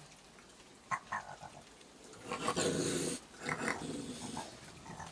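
Raccoons growling at each other while feeding: one growl a little over two seconds in lasting about a second, then a shorter one just after, with a few clicks and knocks about a second in.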